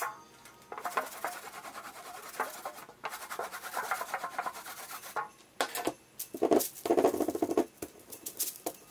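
Rubber brayer rolling back and forth through tacky black block-printing ink on an inking tray, a crackly, sticky rasp in repeated strokes, loudest a little past the middle. Near the end the inked roller is run over the lino block.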